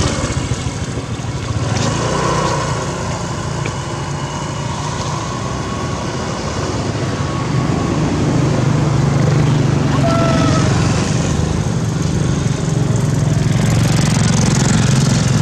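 An engine running steadily, with a low, rapidly pulsing hum that grows louder about halfway through. A short high squeak sounds once about ten seconds in.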